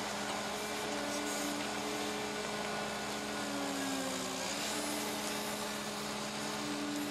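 Cat 309 CR mini excavator working: its C3.3B diesel engine runs steadily under load, with a hum and whine from the hydraulics that dips in pitch briefly around the middle as the bucket curls in and lifts a load of dirt out of the trench.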